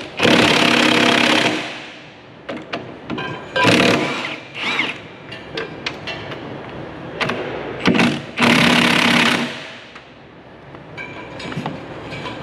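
Milwaukee FUEL cordless impact wrench hammering on bolts in two long bursts of over a second each, near the start and about eight seconds in, with a shorter burst around four seconds in. Clinks of socket and bolts sound between the bursts.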